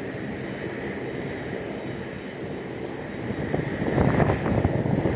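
Airliner engine noise at an airport, steady at first and then louder and rougher from about four seconds in.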